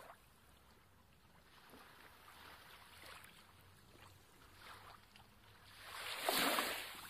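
Soft water lapping and sloshing in a shallow rock pool, with one louder wash of water about six seconds in.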